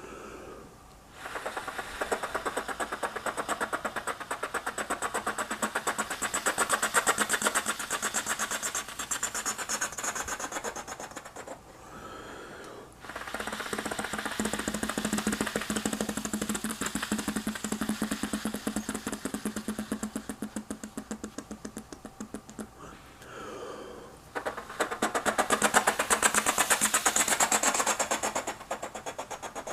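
A person imitating a helicopter with their mouth: rapid fluttering pulses of rotor chop. The sound comes in three long runs, each swelling and fading, with short pauses between them.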